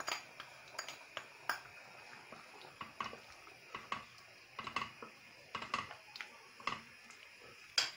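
A cooking spoon stirring green lentil stew in a stainless steel pot, with light, irregular knocks and scrapes against the pot.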